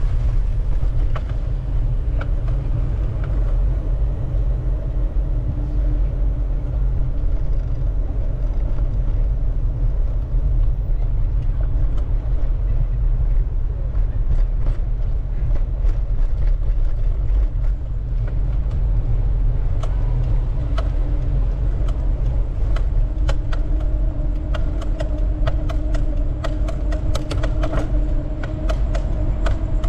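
Wind rumbling on the microphone of a moving bicycle, with a faint hum that comes and goes. In the second half there are bursts of irregular ticks and rattles.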